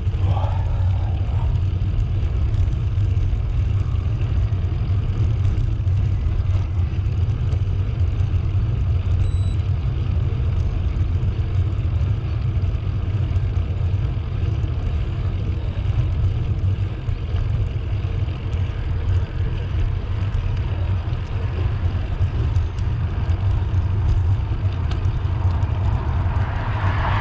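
Steady low rumble of riding noise from a bicycle rolling along a path.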